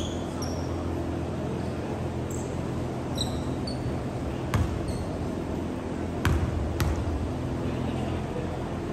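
A basketball bounced on a hardwood gym floor, four sharp thumps in two pairs in the second half, with short high sneaker squeaks in the first few seconds, over a steady low hum.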